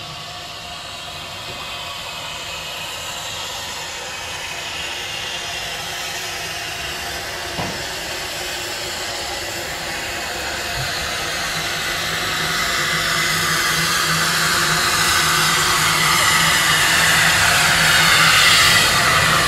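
Small saddle-tank steam locomotive drawing its coaches slowly into a station, with a steady hiss of steam that grows louder as it comes close. A single click sounds about eight seconds in, and a low hum joins about halfway through.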